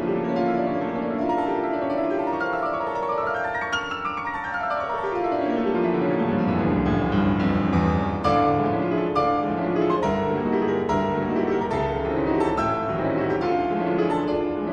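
Background piano music, with a fast run of notes climbing and then falling about a third of the way in.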